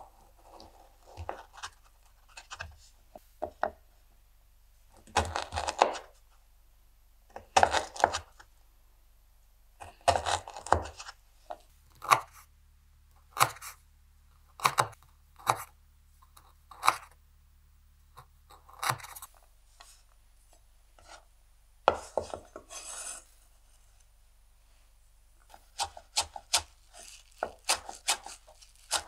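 Chef's knife cutting pancetta on a wooden cutting board: drawn slicing strokes that rasp through the meat and rind, then single chops knocking on the board about once a second. Near the end, quicker chops through chives.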